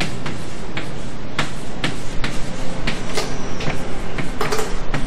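Chalk writing on a blackboard: irregular taps and short scratches of the chalk stick. They come a few at a time at first and grow busier from about two seconds in.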